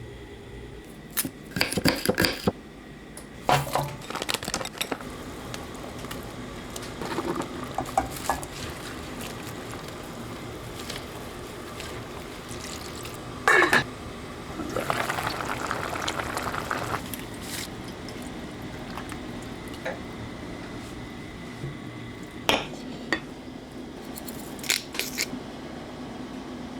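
Cooking clatter: pots, lids and metal utensils clinking and knocking several times, with liquid pouring for a couple of seconds around the middle, over a steady low hum.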